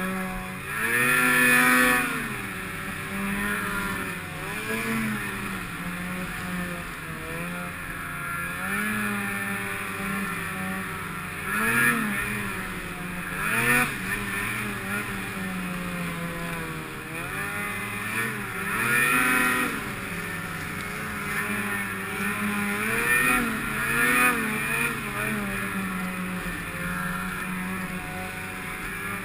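Snowmobile engine under throttle in deep snow, its pitch rising and falling over and over as the throttle is worked, with louder bursts of revving about a second in and several times later.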